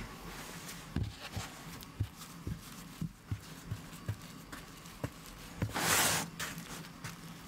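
Hands patting and pressing a filled Ossetian pie dough ball flat on a floured wooden board: a run of soft, dull thumps. About six seconds in, a brief rushing scrape as the wooden board is spun round on the table.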